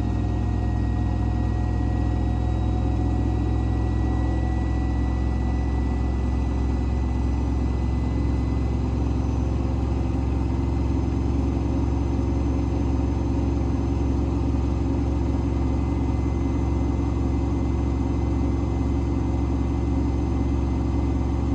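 Hoover H-Wash 500 washing machine in its final high-speed spin at 1400 rpm, the drum and motor running with a steady low hum.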